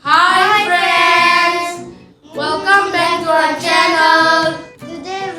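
Children's voices singing two loud phrases of held notes, with a short break about two seconds in.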